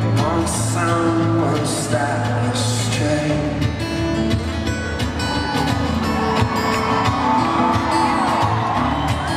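Live band music led by an acoustic guitar over held low notes, with a male voice singing a line in the first couple of seconds before the guitar carries on alone.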